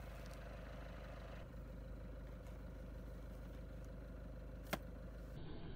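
Faint steady low background hum, with one sharp click near the end as a small rocket is pushed into a cardboard launch tube.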